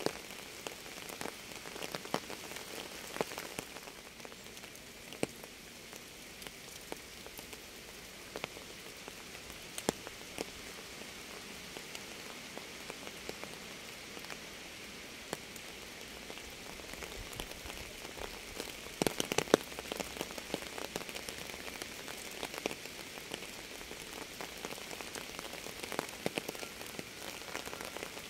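Steady rain falling, an even hiss with individual drops ticking close by, and a brief run of louder drop hits about two-thirds of the way through.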